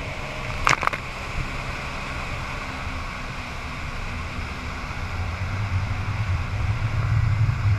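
Engine of a watercraft towing a tube, running under way, with the rush of its wake and wind on the microphone; the engine grows louder from about five seconds in. A short sharp knock or splash just under a second in.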